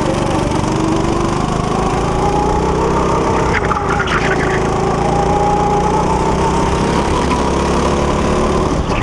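Go-kart's small engine running at speed, heard from the driver's seat, its pitch easing and rising a little as the kart goes through the corners.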